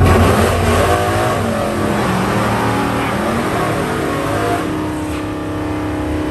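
A racing vehicle's engine running hard under acceleration. Its pitch climbs and drops a couple of times in the first few seconds, then holds a steadier note, easing off slightly toward the end.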